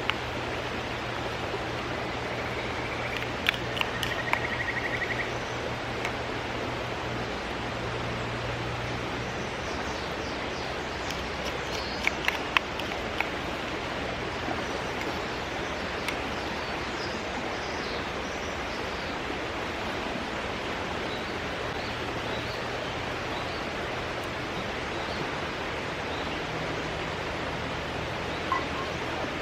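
Steady rush of a mountain stream, with a few sharp clicks and a scatter of faint high chirps over it.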